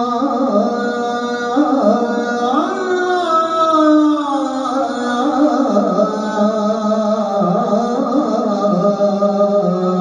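A man singing a sela, the Turkish Islamic chant of blessings on the Prophet, in makam Hüseynî, solo into a microphone. He holds long, ornamented notes that climb to a high point about three seconds in, then wind slowly back down.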